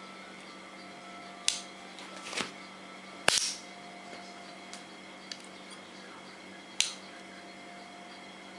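Folding pocket knife flicked open and snapped shut by hand: four sharp metallic clicks of the blade swinging out and locking or closing, the loudest about three seconds in, with a couple of faint ticks after it. A steady low hum runs underneath.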